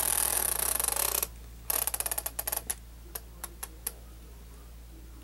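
Reel of a VHS cassette being turned by hand to wind the tape back in: a fast run of ratcheting clicks, a brief pause, another fast run, then a few single clicks, stopping about four seconds in.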